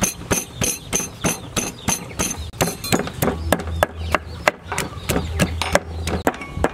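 Wooden pestle pounding garlic cloves in a clay mortar: a steady run of sharp knocks, about three a second.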